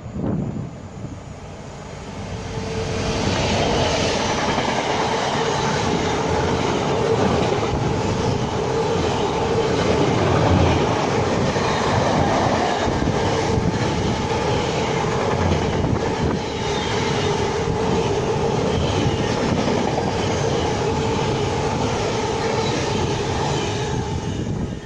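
Train running past on the main line: the rail noise builds over the first few seconds, then holds loud and steady with a steady whine and occasional knocks from the wheels.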